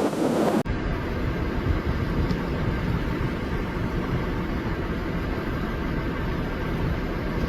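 Steady low rumble of a vehicle running, engine and road noise without change, starting suddenly after a short burst of wind noise.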